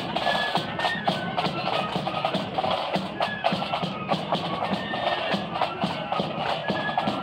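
Marching flute band playing a tune: short high flute notes over a steady beat of snare and bass drums.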